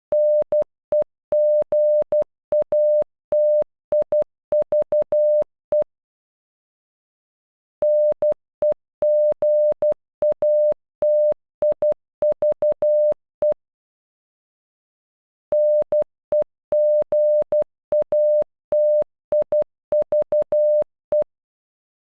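The word "NEGATIVE" in Morse code (-. . --. .- - .. ...- .) sent as electronic beeps of a single steady mid-pitched tone, short dots and long dashes. The word is played three times, with a pause of about two seconds between repeats.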